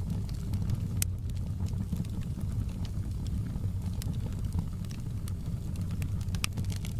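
Wood fire in a fireplace crackling: a steady low rumble of flames with scattered sharp pops, the clearest about a second in, at four seconds and near the end.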